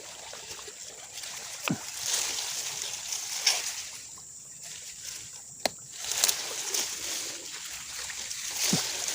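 Water splashing and sloshing, with scattered light clicks and knocks.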